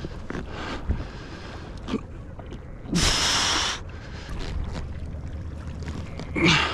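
Angler's heavy breaths and grunts while straining against a large tarpon, over a steady rumble of wind and water around a small inflatable boat, with a loud rushing burst lasting under a second about three seconds in.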